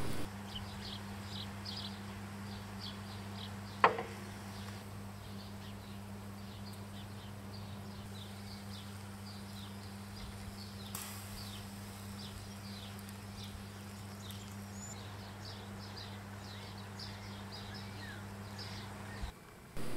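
Faint outdoor ambience: rapid, repeated short high-pitched chirps over a steady low hum, with one short click about four seconds in.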